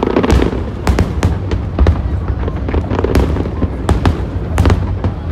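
Aerial fireworks shells bursting overhead in an irregular series of sharp bangs, about two a second, over a steady low rumble.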